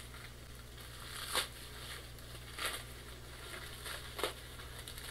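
Plastic bubble wrap being cut and pulled open by hand, crinkling and crackling, with three louder crackles about a second and a half apart.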